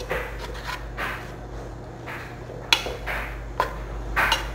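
A spatula stirring flour-dusted cubes of raw beef in a stainless steel stock pot: repeated soft scraping and rubbing strokes, with a couple of sharper knocks against the pot, over a steady low hum.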